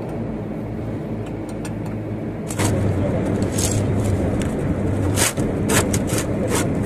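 Steady low hum of a vehicle engine running. From about two and a half seconds in there are several sharp clicks and scrapes of metal work.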